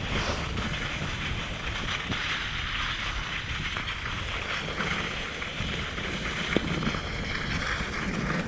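Steady wind rushing over the microphone, with a single short tap about six and a half seconds in.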